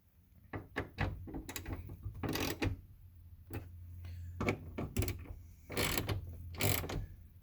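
Ratchet clicking in irregular strokes as the T30 bolts of a truck door handle are tightened, with a few short scraping sounds.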